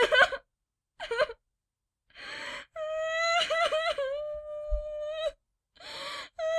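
High-pitched female voice crying: a short sobbing cry, a sharp gasping in-breath, then a long high wail broken by sobbing catches, and another gasping in-breath before the wail starts again near the end.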